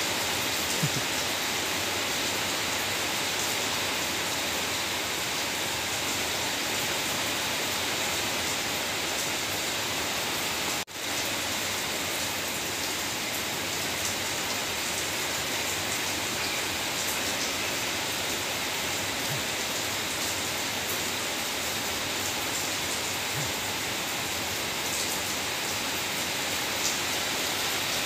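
Steady rain, an even hiss that breaks off for a split second about eleven seconds in.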